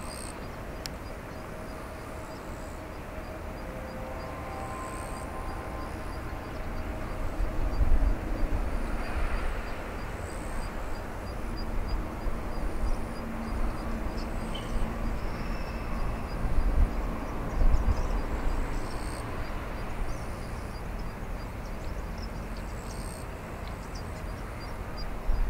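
Airbus A350-900 taxiing: a steady rumble of engine and rolling noise, with a few heavier low thumps around 8 and 17 seconds in.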